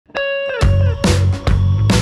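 Background music: a single held note that slides down in pitch, then a beat with heavy bass comes in about half a second in.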